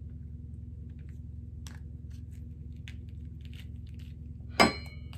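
Faint crackling and clicking of a cooked lobster tail shell as the meat is pulled out of it by hand, over a steady low hum. Near the end comes a single sharp clink with a short ring, the loudest sound.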